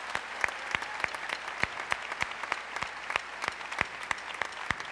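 Audience applauding, a dense patter of many hands with a few louder single claps standing out.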